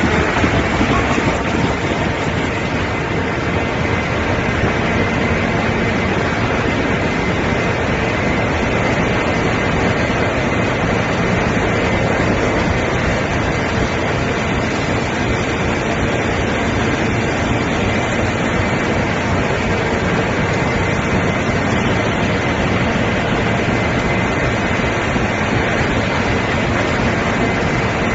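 Corrugated carton-box machinery running steadily: a loud, continuous mechanical din with a faint steady whine in it and no clear beat.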